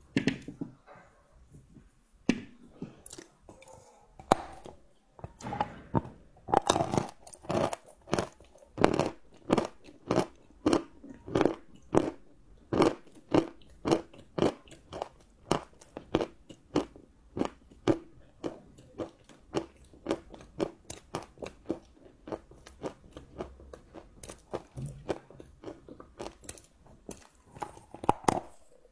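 Close-up chewing of crunchy chocolate: a steady run of crisp crunches, about two to three bites of the jaw a second.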